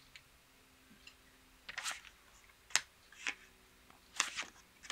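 About five short, scattered clicks and snaps: casino chips set down on the table to double a bet, and playing cards dealt onto the felt.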